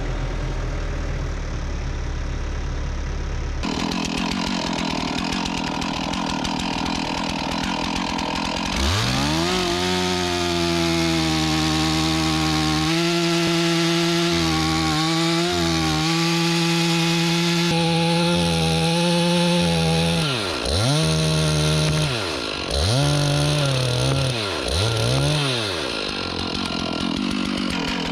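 Two-stroke chainsaw bucking pine logs to length. The saw's engine revs up sharply about nine seconds in and holds at full throttle through a cut, then drops and revs up again several times near the end. Before the first cut an engine runs at low speed.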